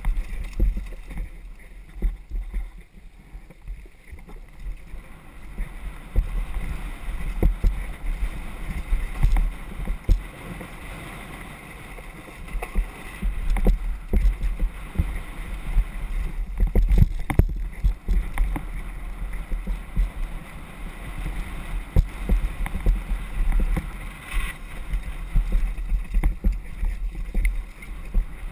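Wind rushing over the microphone of a camera on a downhill mountain bike riding fast down a dirt trail, a steady low rumble. Many knocks and rattles from the bike over the bumps run through it, thickest in a rough patch about two-thirds of the way through.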